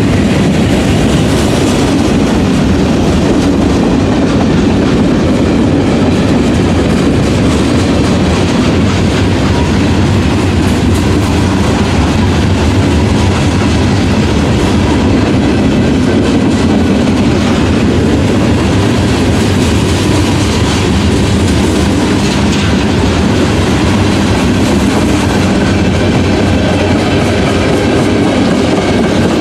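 CSX freight train's cars rolling past close by: a steady, loud rumble with the wheels clacking over the rail joints.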